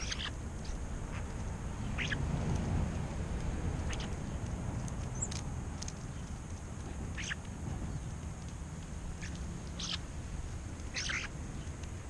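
European starlings giving short calls, about seven of them, one every second or two.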